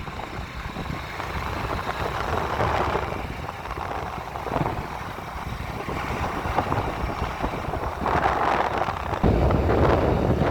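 Wind buffeting the microphone: a steady, noisy rumble that swells in gusts and grows louder about eight seconds in.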